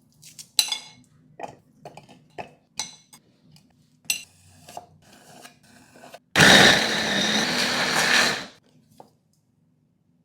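Dishes and utensils clink and knock several times, some with a short ring. Then an electric kitchen blender runs steadily for about two seconds and stops.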